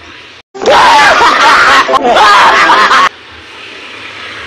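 Loud laughter right at the microphone, so loud it distorts, starting about half a second in and lasting about two and a half seconds before cutting off suddenly.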